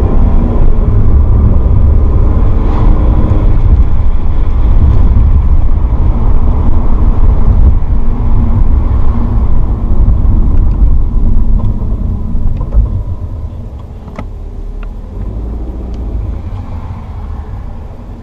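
Alfa Romeo 156 JTS's four-cylinder petrol engine and road noise heard from inside the cabin while driving, a heavy low rumble. It drops to a quieter level about two-thirds of the way through, with a few faint clicks soon after.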